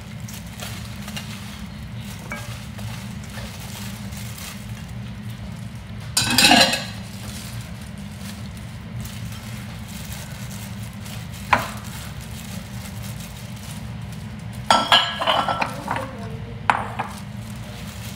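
A glass bowl and dish clink and knock against a stainless steel mixing bowl as salad ingredients are tipped in. There are a few separate strikes, the loudest about six seconds in and a cluster near the end, over a steady low hum.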